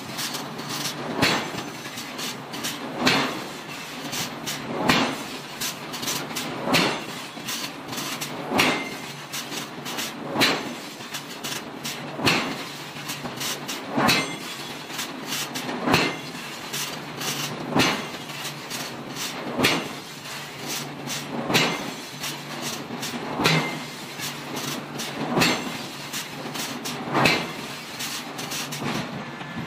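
Heavy drilling machine boring into a red-hot iron forging: a steady machine hum with a louder ringing stroke repeating about every two seconds.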